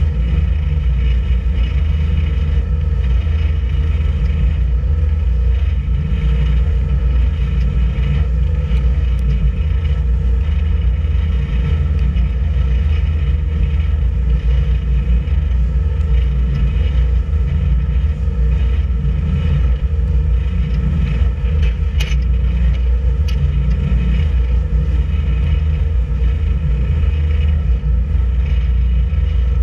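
A boat's engine running steadily while the boat steams along: a constant low rumble with a steady drone layered above it. Two brief clicks come about three-quarters of the way through.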